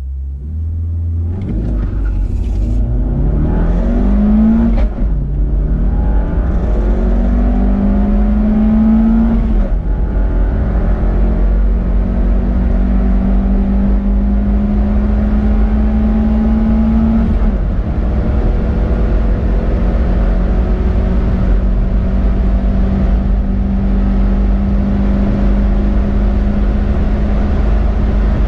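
Lancia Y's 1,242 cc Fire 16-valve four-cylinder engine under full-throttle acceleration from a standstill, heard inside the cabin. The revs climb in each gear, and the pitch drops back at gear changes about 5, 10 and 17 seconds in. The last stretch is a long, slowly rising pull in a high gear, over a steady low rumble.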